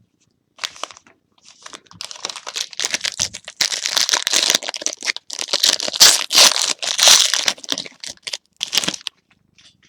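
Trading-card pack wrapper being torn open and crinkled by hand, an irregular crackling that grows loudest in the middle and stops about a second before the end.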